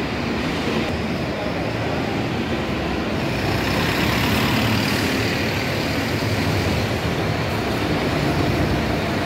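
Diesel city buses running at idle, a steady engine rumble with no breaks.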